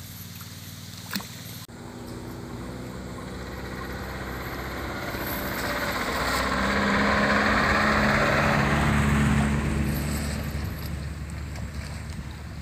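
An engine passing by: a steady engine note that grows louder over several seconds, is loudest a little past the middle, then fades away.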